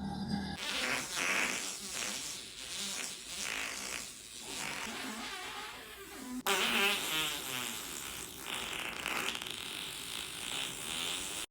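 A man farting, a run of drawn-out passes of gas, with an abrupt change in the sound about six and a half seconds in.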